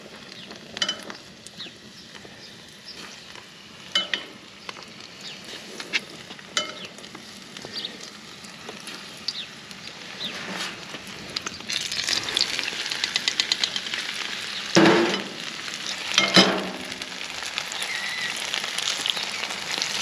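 Breaded cicadas frying in hot oil in a skillet, sizzling and crackling. The sizzle grows denser and louder about halfway through as more pieces go into the oil, with two brief louder spurts near the end.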